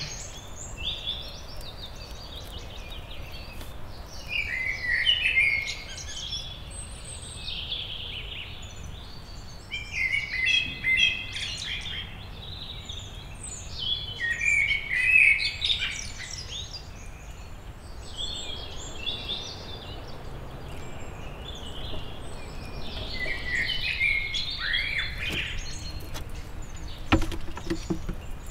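Wild songbirds singing, phrase after phrase with short gaps between, over a low steady outdoor background. A few sharp clicks come near the end.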